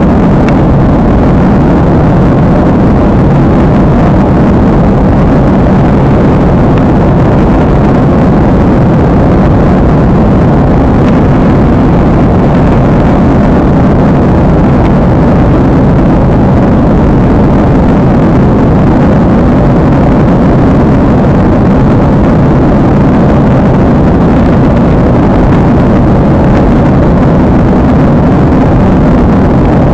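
Steady engine and air noise inside a jet airliner's cabin in flight, even and unchanging, heaviest in the low range.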